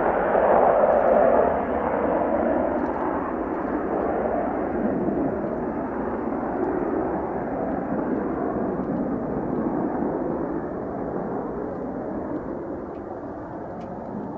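Mitsubishi F-2 fighter's single F110 turbofan engine at full thrust with afterburner lit as the jet climbs away after takeoff. The loud jet noise is strongest in the first couple of seconds, then slowly fades and grows duller as the aircraft recedes.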